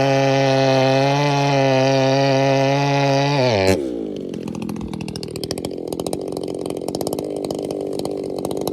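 Echo CS-620PW two-stroke chainsaw with a ripping chain, held at high revs while noodling ash. About three and a half seconds in, the throttle is released: the revs fall sharply and the saw settles into a steady idle.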